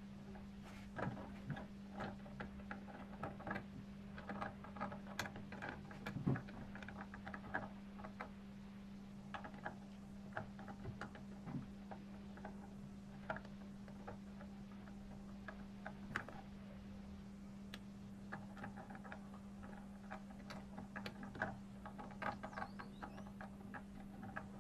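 Small steel gears and shafts of a Hasler Bern railway speedometer mechanism clicking and ticking against each other and the housing as they are fitted by hand, in irregular clusters of light metallic clicks. A steady low hum runs underneath.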